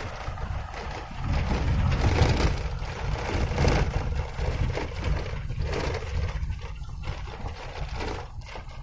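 Low rumble and road noise of a vehicle driving on a corrugated dirt road, heard from inside the cab, swelling louder about a second in and rising and falling after that.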